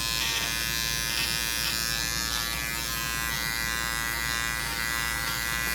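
Electric dog grooming clippers running steadily with an even hum.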